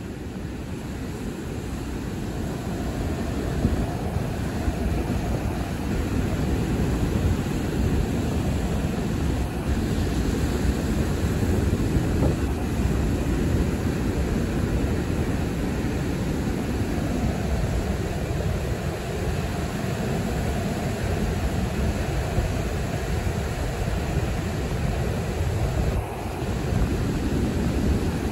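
Ocean surf washing up the beach at high tide, with wind rumbling on the microphone. It is a steady noise that grows a little louder about three seconds in.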